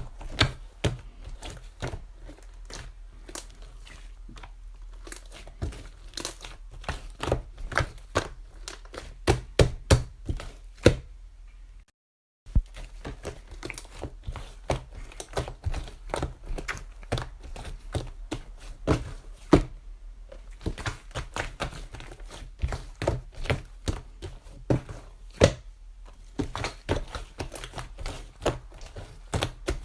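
Irregular crinkling with many sharp taps and clicks, over a steady low hum; the sound cuts out completely for about half a second around twelve seconds in.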